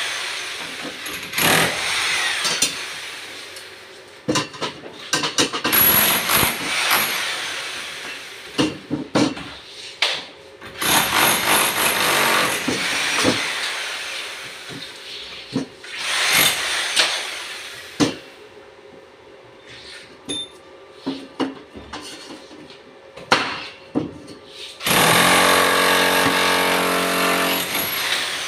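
Electric chipping gun (demolition hammer) hammering in repeated bursts of one to two seconds with short pauses between them. For the last few seconds it runs steadily with a clear motor pitch.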